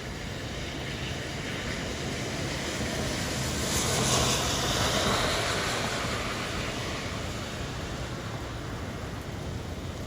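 Steady rain hiss, with a car passing on the wet road: its tyre swish swells to a peak about four seconds in and fades away.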